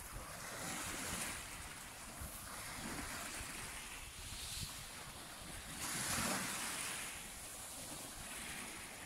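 Small waves washing up and lapping on a coarse sand and shell-gravel shore, swelling about one second in and again about six seconds in, with wind rumbling on the microphone.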